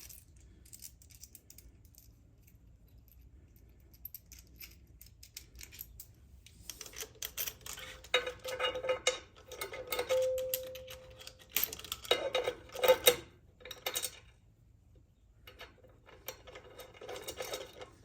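Metal hardware clinking and rattling as a ride plate's bolts and turnbuckles are fitted by hand. A few light ticks come first, then a stretch of dense clinking with a short ringing note and a few sharper knocks, and more clinking near the end.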